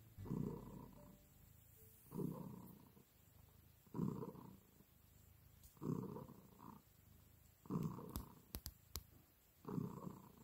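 Turkish Angora cat purring at close range, a rough rhythmic purr that swells with each breath, about once every two seconds. A few faint clicks come about eight seconds in.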